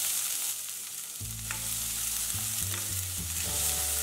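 Chopped onions sizzling as they land in hot oil in a stainless-steel pan, stirred with a spatula, with a few light taps of the spatula against the pan.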